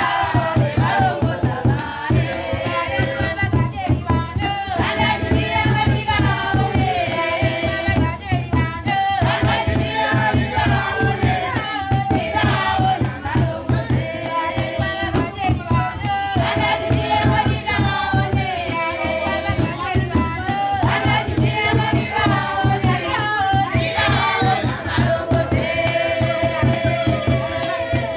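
A group of women and girls singing together over a steady, fast beat on hand drums.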